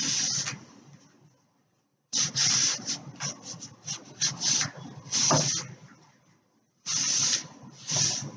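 Quick scrubbing and wiping strokes against the wood of an unfinished china cabinet as gel stain is rubbed in by a gloved hand. The strokes come in three runs separated by two short pauses.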